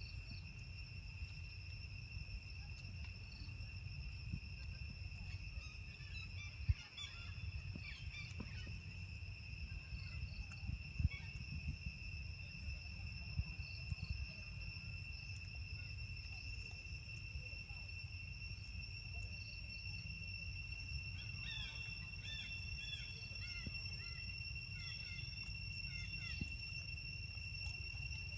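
Steady high-pitched insect drone, one tone with a fainter overtone, over a low rumble. Clusters of short bird chirps come in about a third of the way through and again near three quarters.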